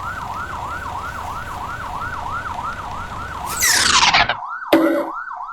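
Cartoon police car siren yelping in rapid up-and-down sweeps, about three a second, over a low engine rumble. A loud noisy burst breaks in about three and a half seconds in, the loudest thing heard, followed by a shorter one a second later.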